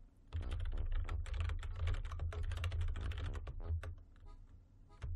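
Fast typing on a computer keyboard, a dense run of keystrokes that starts about half a second in and slows to a few scattered clicks near the end.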